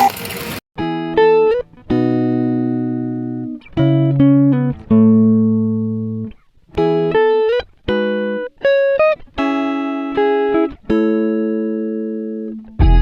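Background music: a slow run of clean plucked guitar chords, each struck and left to ring and fade.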